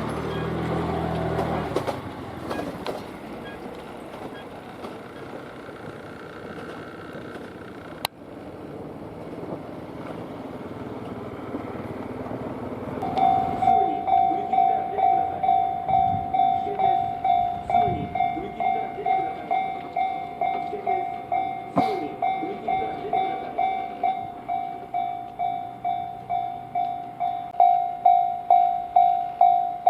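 An electric train finishes passing over a Japanese level crossing, its rumble fading in the first two seconds. About 13 s in, the crossing's electronic warning bell starts up and rings on in even, rapid strokes, about one and a half a second, warning of the next train and louder near the end.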